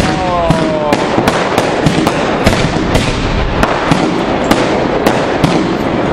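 Fireworks barrage going off at close range: sharp bangs about three a second over continuous crackling and hiss.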